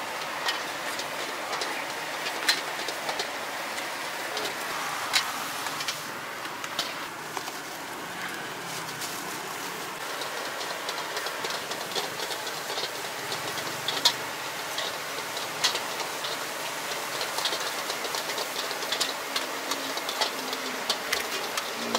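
Street-stall cooking: a steady hiss of a gas burner and frying food, with irregular sharp clinks of metal utensils against a pan.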